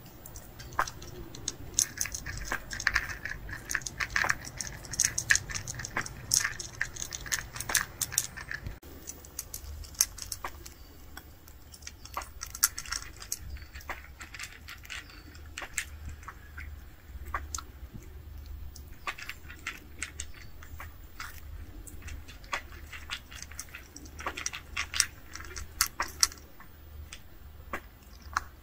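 Cats eating dry kibble: a rapid, irregular series of crunches and clicks as the pellets are bitten and chewed.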